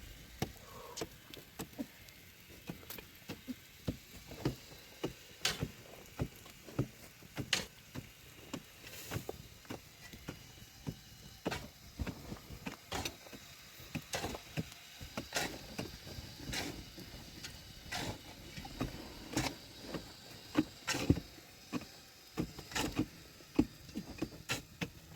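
Irregular series of sharp knocks and taps, about one or two a second, over a faint background.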